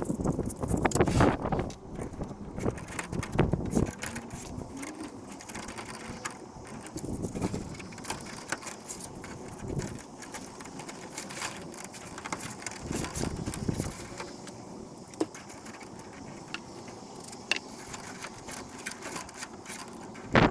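Irregular clicks, knocks and rattles of hands handling and assembling small parts, busiest in the first few seconds, with one sharp knock near the end.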